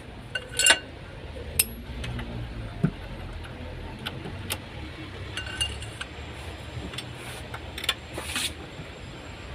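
Scattered metallic clicks and clinks, some briefly ringing, from a ring spanner and bar working the camshaft sprocket bolt at the exposed timing chain of an Opel Corsa D 1.2 engine while the cam timing is being set.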